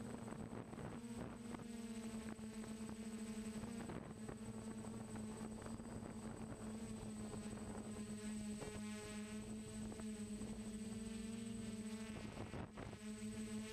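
DJI Flame Wheel F450 quadcopter's brushless motors and propellers humming steadily, close to the onboard camera, with a faint high whine above; the pitch wavers in the second half as the throttle changes.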